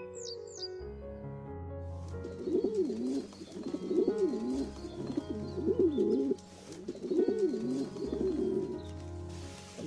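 Domestic pigeon cooing over and over, each coo rising and falling in pitch, starting about two seconds in, over soft background music. A brief high chirp from a male Daurian redstart in the first half-second.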